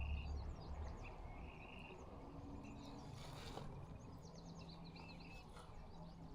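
Small birds chirping and twittering, many short, fast calls overlapping throughout. There is a low rumble in the first second and a brief rush of noise a little after three seconds in.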